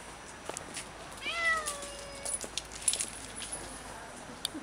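A domestic cat meows once, a single call of about a second that starts high and falls in pitch, followed by a few sharp clicks.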